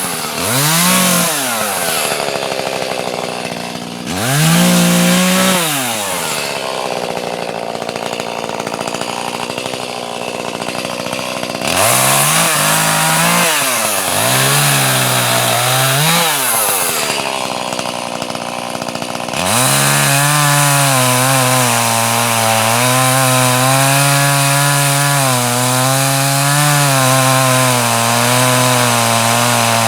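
Two-stroke chainsaw revved up and back down in several short bursts, running at low speed between them. About two-thirds through it is held at high throttle, its pitch wavering slightly as it cuts through wood.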